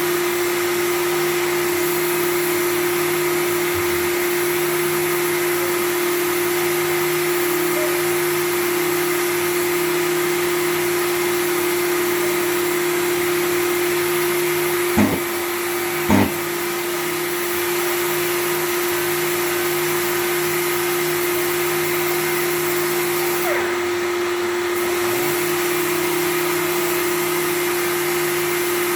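Power sander running steadily while dry sanding a car's rear bumper, a constant motor hum and whine with the hiss of abrasive. About halfway through there are two short knocks and a brief dip in the sound.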